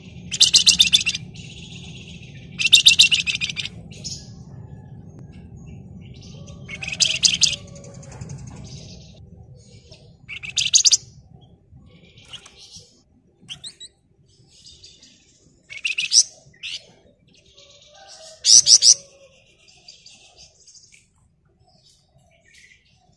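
Flamboyan (wergan Jawa, Javan fulvetta) singing: loud, short bursts of dense, rapid, high trilling chatter a few seconds apart, with fainter short calls between them. A low hum runs under the first nine seconds or so.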